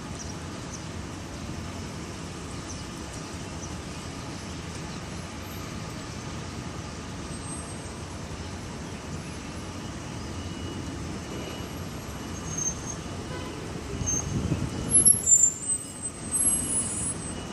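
Steady rumble of city road traffic, with a louder vehicle passing close near the end, accompanied by short high-pitched squeaks.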